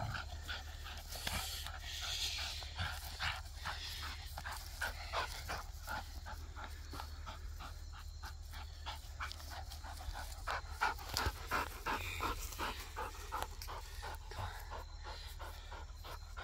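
Vizsla dog panting quickly and evenly, several breaths a second, out of breath from running during play.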